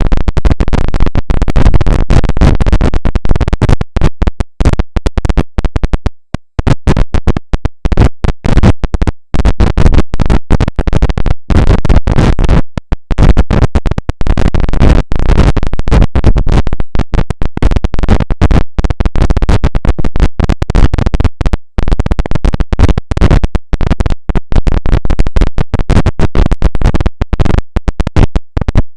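Loud sneeze recording run through a vocoder effect (Image-Line Vocodex) and chopped into rapid stuttering bursts broken by brief gaps, so it sounds like electronic scratching.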